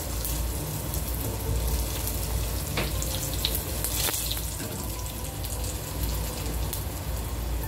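Hot oil sizzling in a pan with whole dried red chillies and garlic cloves frying for a tadka, a steady hiss with a few sharper crackles about three and four seconds in. A low steady hum runs underneath.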